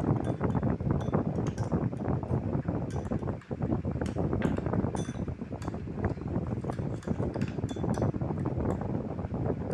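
A spoon stirring a sticky glue-and-activator mixture as it turns into slime: continuous wet, squishy churning with frequent small clinks of the spoon against the container, and a brief pause about three and a half seconds in.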